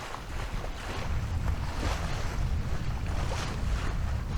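Water rushing and splashing along the hull of a Maxi 95 sailboat under sail, with wind buffeting the microphone as a steady low rumble.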